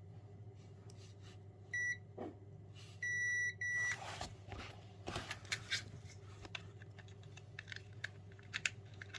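Three electronic beeps, one short and then two longer ones close together, followed by light clicks and knocks of handling over a steady low hum.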